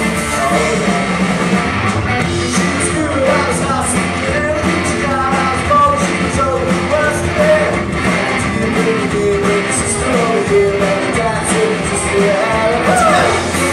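Live rock band playing loud, with electric guitars and a lead singer.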